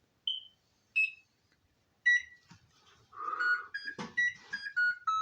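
Electronic beeps of different pitches: three single beeps about a second apart, then a quicker run of beeps stepping down in pitch.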